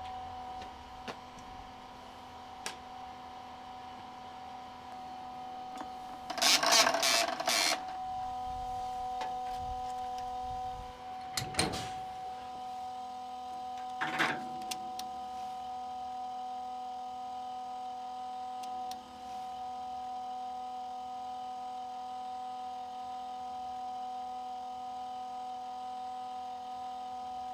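Hydrogen refuelling station running during an active fill, with a steady hum made up of several fixed tones. A loud burst of noise lasts about a second around seven seconds in, and there is a click near twelve seconds and a shorter burst near fourteen seconds as the fuelling nozzle is handled.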